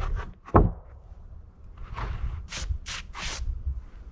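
Freshly chainsaw-milled wooden boards being handled and shifted against one another: a sharp wooden knock about half a second in, then a few short scraping rubs of board sliding on board.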